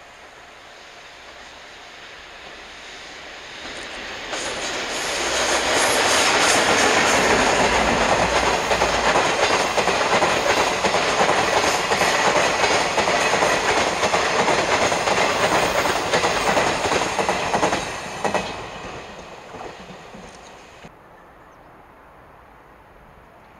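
Twilight Express, a locomotive-hauled sleeper train, approaching and passing close by. A building rumble of steel wheels on rail with rapid clickety-clack over the rail joints is loud for about twelve seconds, then fades away.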